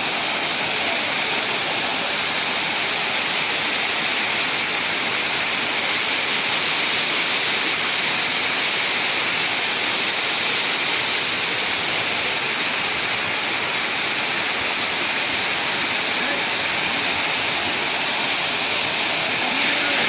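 Waterfall: a steady, unbroken rush of falling water.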